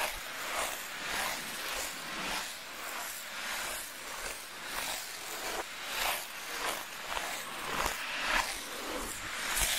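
Ice skate blades scraping across natural lake ice in a steady run of short strokes, about two a second.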